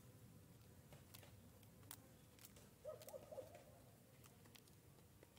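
Faint, soft cooing from a dove: a short run of low notes about three seconds in, over a few faint scattered clicks.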